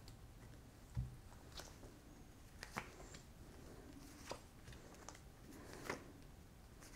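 Faint handling of a tarot deck: a few short, soft clicks as cards are shuffled, drawn and laid on the table, with a low thump about a second in.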